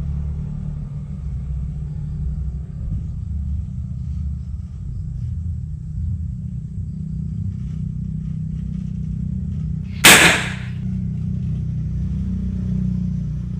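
A small PVC-pipe methylated-spirit cannon fires once, about ten seconds in. The press of its igniter sets off the shaken spirit vapour in a single loud bang, over a steady low rumble.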